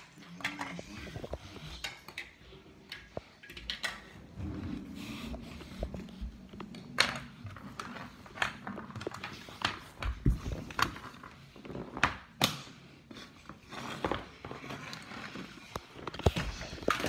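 Irregular knocks, clacks and rustling of plastic box fans being handled and moved about on a wooden floor, with the handheld phone's own handling noise. The louder knocks come singly every second or two.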